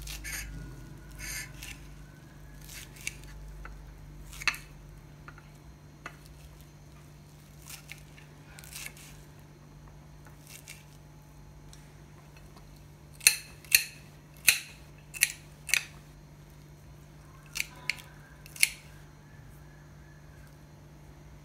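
Kitchen knife chopping cooked leafy greens on a ceramic plate, the blade clicking sharply against the plate. The cuts come irregularly, with a quick run of loud clicks in the second half.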